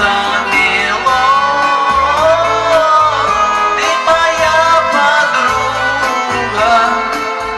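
Karaoke-style backing track playing an instrumental passage: a held, gliding melody line over a pulsing bass.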